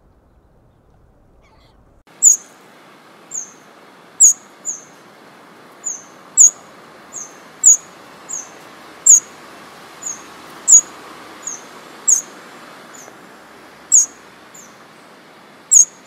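A small bird repeating short, sharp, high chirps, about one every three-quarters of a second, some much louder than others, over a steady hiss of woodland background. The chirps and hiss begin about two seconds in, after a quiet start.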